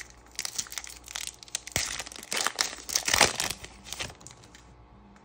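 Foil trading-card pack being opened by hand: the wrapper crinkles and tears in a dense run of crackling that starts about half a second in, peaks near three seconds and stops about four seconds in.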